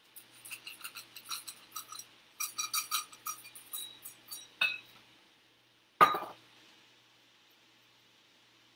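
Chocolate chips clinking and rattling against a metal measuring cup as they are shaken out, in two runs of quick small clinks. A single sharp knock comes about six seconds in.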